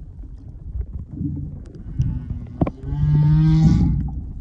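Humpback whale calls heard underwater: a few short low moans, then a longer, louder call held at a steady pitch for about a second, starting a little past halfway.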